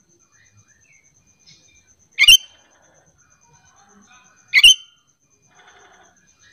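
Sooty-headed bulbul calling: two loud, short, sharp calls about two seconds apart, with much fainter chirps between them.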